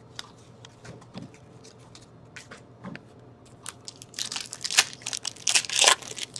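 A few faint taps of trading cards being handled and set down, then about four seconds in, the loud crinkling and tearing of a hockey card pack's foil wrapper being ripped open.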